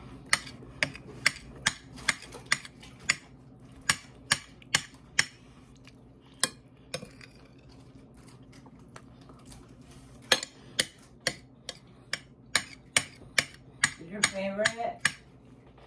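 Metal fork clinking and tapping against a dinner plate while eating, sharp clinks about two a second, a pause in the middle, then another run near the end.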